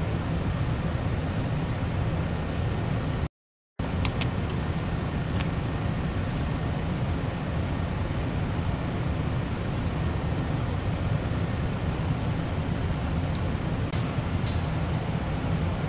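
Steady low rumble with a hiss above it and a few faint clicks; it cuts out completely for about half a second a few seconds in.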